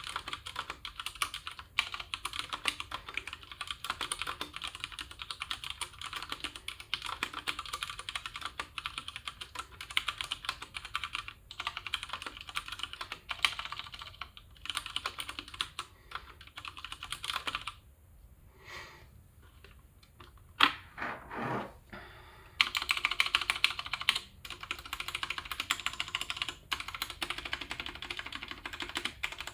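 Fast, continuous typing on a Ducky One 2 TKL mechanical keyboard with stock Cherry MX Brown tactile switches, key after key clacking. Past the middle the typing breaks off for a few seconds with only a few separate key presses, then picks up again.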